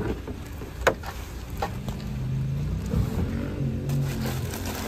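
Two knocks as a folding table and gear are slid into the cargo area of a car, then the steady low hum of a vehicle engine running.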